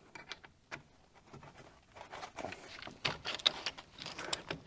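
Metal hand tools clicking and scraping against a rear brake caliper's retaining clip as it is pried at, in sharp, irregular taps that grow busier in the second half; the clip is stuck and does not come free.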